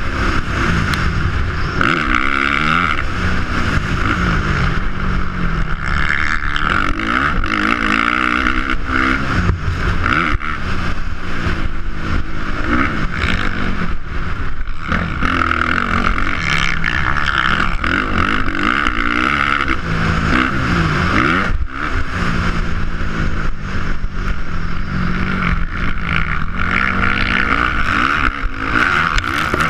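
Dirt bike engine heard from on the bike, revving up and falling back over and over as the rider accelerates out of turns and up hills and backs off for jumps and corners around a motocross track.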